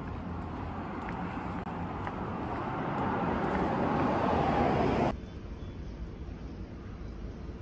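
Street traffic noise: a passing vehicle's sound swells louder over several seconds, then cuts off suddenly about five seconds in, leaving quieter street background.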